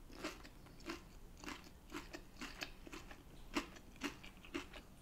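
A person chewing a mouthful of food close to the microphone, with small crisp crunches about two a second.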